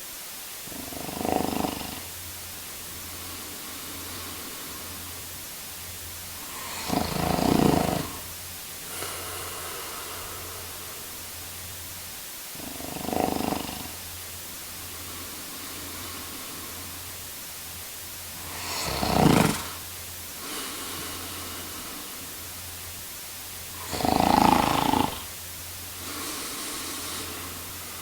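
A man snoring: five loud snores about every six seconds, each lasting about a second, with a fainter breath sound after several of them. A steady low hum and hiss run underneath.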